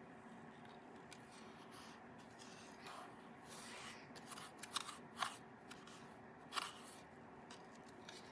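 Faint, scattered clicks and rustles of small objects being handled, a few sharper ticks among them, over a low steady hum.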